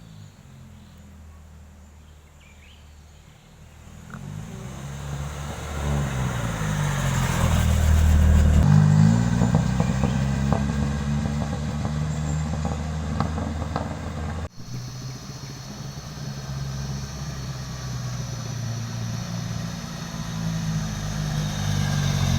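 A motor vehicle's engine running, its pitch rising and falling as it revs, growing louder about four seconds in, with a sudden break about two-thirds of the way through.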